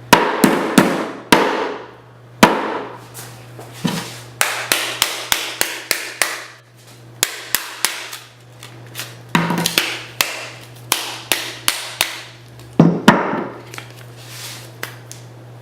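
A phone being struck hard again and again: a few dozen sharp blows, some single and some in quick runs of two or three a second, several trailing off in a brief ringing rattle.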